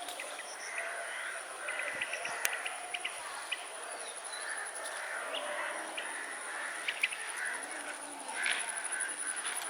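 Birds chirping and calling, over a steady high-pitched insect drone.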